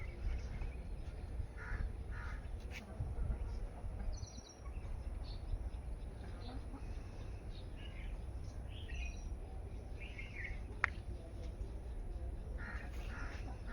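Crows cawing now and then, with the high chirps of small birds, over a low steady rumble.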